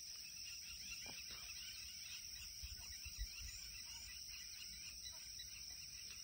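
Faint evening insect chorus, a steady high-pitched drone with scattered small chirps over it, above a low rumble with a couple of soft bumps about three seconds in.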